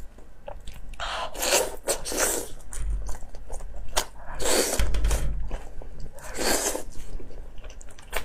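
Close-miked chewing and mouth smacking on soft braised pork belly: a run of short noisy bursts about a second apart, with a few sharp clicks.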